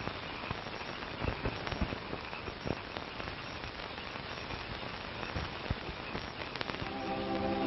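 Steady hiss with scattered crackles and pops, the surface noise of an old optical film soundtrack. Near the end a few held music notes come in.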